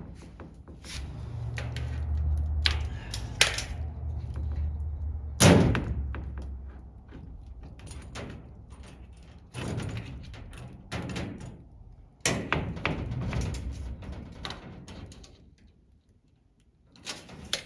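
Large plastic body panel being handled and positioned against a race car's body: a string of knocks and thumps, the loudest about five and a half seconds in, over a low rumble in the first few seconds.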